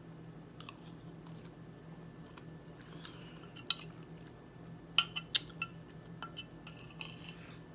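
Metal spoon clinking and scraping against a plate while food is scooped up and eaten, with a few sharp clinks, the loudest a quick cluster about five seconds in, over a low steady hum.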